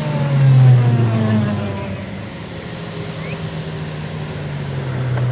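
De Tomaso P72 prototype's 6.3-litre naturally aspirated V12 engine running, its pitch sliding down over the first two seconds. It is loudest about a second in, then holds a steadier note.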